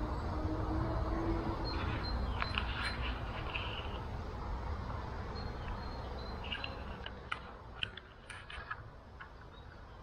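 Faint clicks, taps and short scrapes of wooden hive frames being handled during a hive inspection, over a low rumble that slowly fades. A low hum, like a bee flying close by, stops about a second and a half in.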